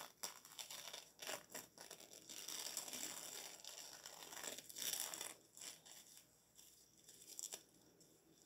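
Faint crinkling and rustling of soft protective wrapping, pulled by hand off a statue piece in short, irregular bursts.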